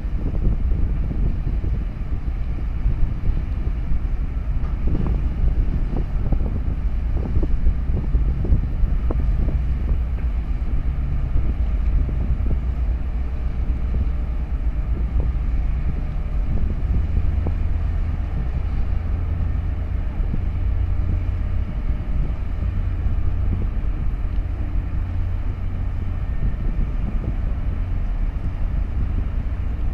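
A large engine drones low and steady, with wind buffeting the microphone, more in the first third.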